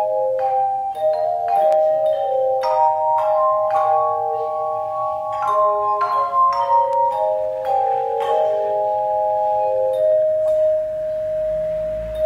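Handbell choir ringing a slow melody: each struck note rings on and overlaps the next, with the last note left ringing near the end.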